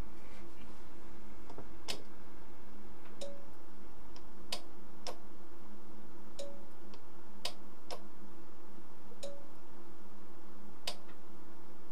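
Sencore LC102 capacitor-inductor analyzer at work: about ten sharp clicks at uneven spacing from its switching relays and keypad presses. Underneath, a short faint tone sounds about every three seconds over a steady hum.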